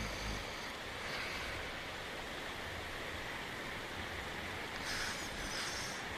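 Steady hiss of rain, with the tail of a snore dying away in the first half-second.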